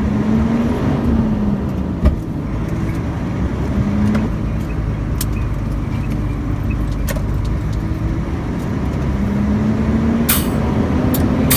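Truck diesel engine heard from inside the cab, its pitch rising and falling several times as it is revved and shifted through a 13-speed Eaton Fuller Roadranger gearbox. There is a sharp click about two seconds in and a couple of short clicks near the end.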